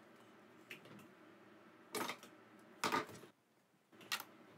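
A few light clicks and taps from a Singer Heavy Duty sewing machine being handled as it is threaded. There are about four short sounds, spaced roughly a second apart, with the loudest near the middle.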